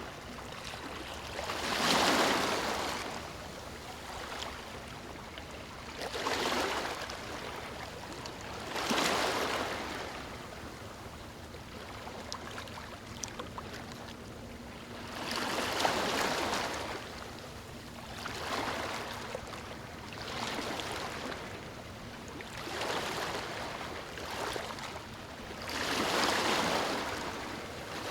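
Small calm waves breaking and washing up on a sandy beach: a swell of surf hiss rises and falls every few seconds at uneven intervals, loudest about two seconds in and near the end.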